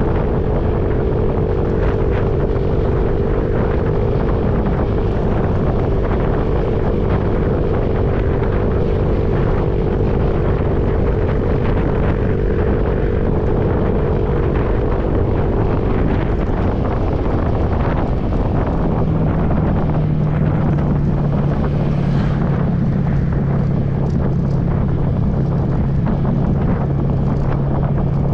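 Strong wind buffeting the microphone over a steady motor drone. About two-thirds of the way through, the drone drops to a lower pitch.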